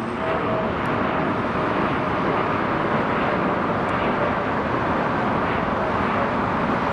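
Boeing 787 jet airliner climbing out after takeoff, its engines giving a steady rushing noise with a faint steady tone that fades during the first part.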